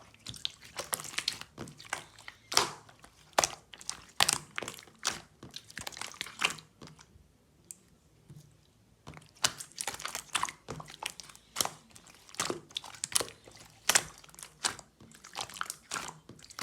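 Irregular quick clicks, taps and crinkles in a small room, pausing for about two seconds near the middle.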